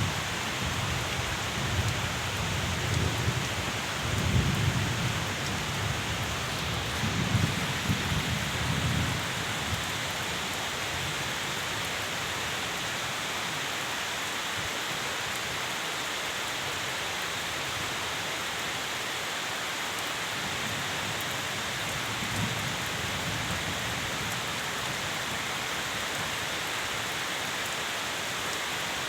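Steady rain falling, with low rumbles of thunder that swell and fade through the first nine seconds or so and return briefly about twenty-two seconds in.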